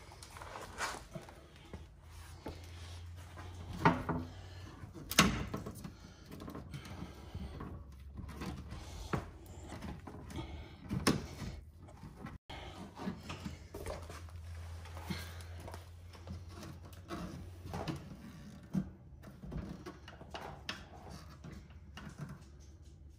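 Scattered knocks, clicks and rattles of a carbon fiber rear diffuser being pushed and worked into its mounting clips under a car's rear bumper. The sharpest knocks come about four, five and eleven seconds in, over a low steady hum.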